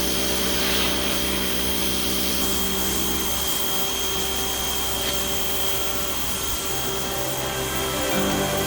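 Pressure washer running, spraying a wide fan of water onto a concrete patio to blast off dark stains.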